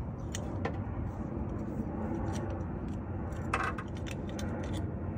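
Small clicks and scrapes of a battery hold-down bar being worked into place over a car battery, with a louder brief rattle about three and a half seconds in. The bar is a tight fit over the taller replacement battery.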